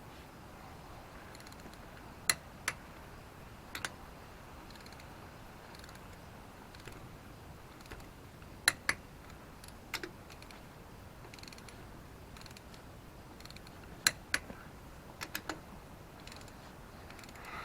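Click-type torque wrench tightening wheel lug nuts: sharp clicks, often in pairs, every few seconds as each nut reaches its set torque on the first tightening pass.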